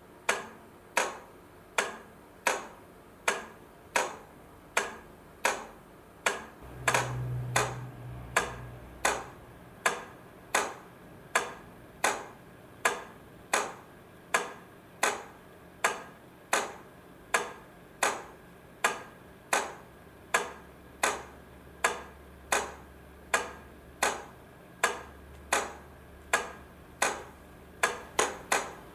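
Railway crossing light flasher unit clicking evenly about once a second as it switches the lamps on and off, each click sharp with a short ring after it.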